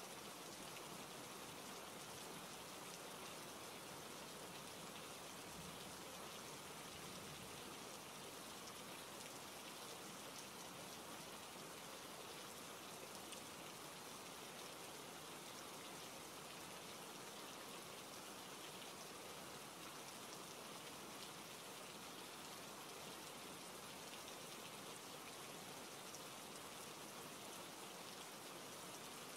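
Steady, faint rain: an even hiss of many drops falling without a break.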